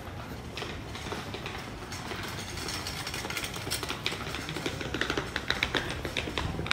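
Footsteps clicking on a cobblestone street, irregular and growing louder and denser in the second half, over a low steady background of the street.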